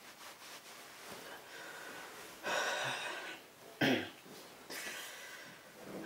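A man breathing out heavily, then a short, sharp cough about four seconds in, followed by softer breathing.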